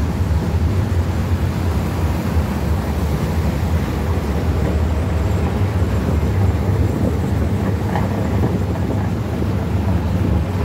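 Tatra T6B5SU tram running along the track, heard through an open side window: a steady low rumble.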